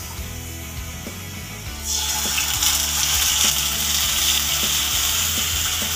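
Sliced onions frying in hot oil in a pan, sizzling steadily; the sizzle grows much louder about two seconds in.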